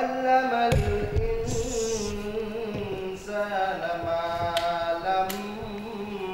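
A man chanting a Quran recitation over a lectern microphone, holding long melodic notes that bend up and down, with a few low thumps about a second in.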